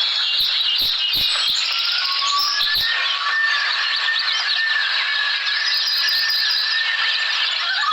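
Outdoor nature recording played as the kangaroo's sound: a dense chorus of bird chirps and whistles over a steady outdoor hiss, with a few soft knocks in the first three seconds.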